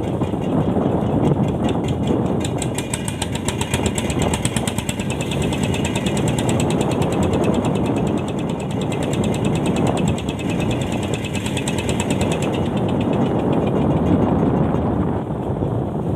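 Steady low rumble of a fishing boat's engine and sea noise, with a rapid, even mechanical clicking from about a second in that stops about three-quarters of the way through.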